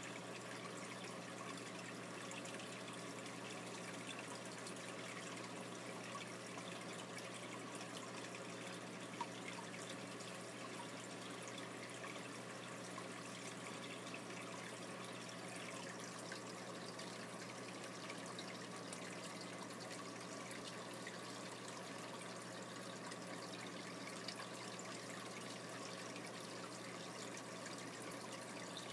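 Aquarium water trickling steadily over a low, steady electric hum, with a couple of faint clicks.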